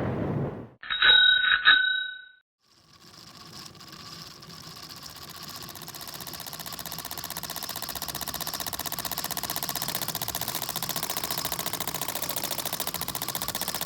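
A bell rings twice in quick succession. After a short silence, a steady buzzing sound fades in and grows gradually louder.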